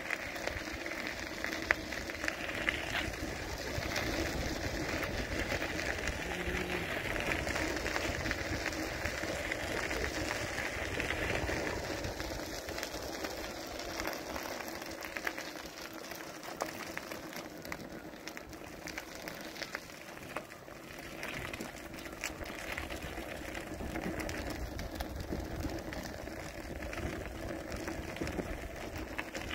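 Tesla V2 electric unicycle rolling along a trail: a steady crackling rush of tyre noise on the path, with a faint steady hum underneath, a little louder in the first half.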